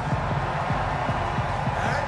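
Loud arena hype music with a heavy, fast bass beat, under a dense wash of crowd noise.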